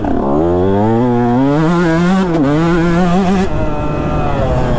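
2019 KTM 150 SX's single-cylinder two-stroke engine accelerating hard, its pitch climbing for the first second and a half, dipping briefly about two seconds in, then holding high. About three and a half seconds in the throttle is shut off and the engine drops to a lower, quieter note.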